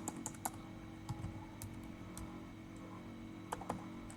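Scattered keystrokes on a computer keyboard: a quick cluster of taps at the start, then a few more spread out, over a faint steady hum.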